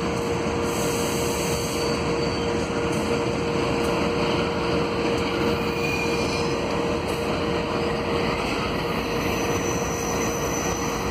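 Diesel-electric freight locomotives running in a rail yard: a steady engine rumble with one constant pitched hum over it.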